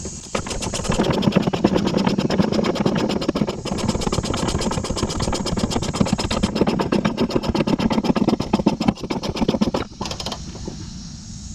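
Power wrench running a subframe bolt down tight: a fast, even mechanical rattle that stops about ten seconds in, once the bolt is snug.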